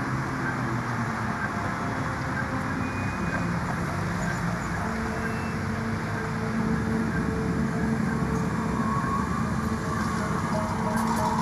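A steady low rumble of city traffic from a recorded street soundscape, with the ensemble's held instrumental notes blending into it; a higher held tone comes in and rises slightly in the second half.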